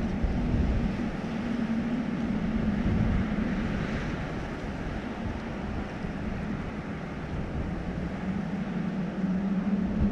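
Steady low hum of a car engine idling close by, with a wash of noise over it.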